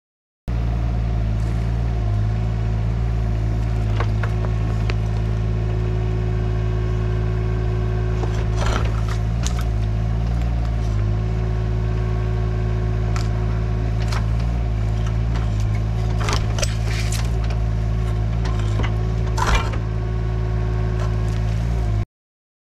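Yanmar SV17 mini excavator's diesel engine running steadily under load, with a hydraulic whine that dips in pitch now and then as the controls are worked. Scattered sharp knocks and scrapes of the bucket against concrete and stone, the loudest about nineteen seconds in.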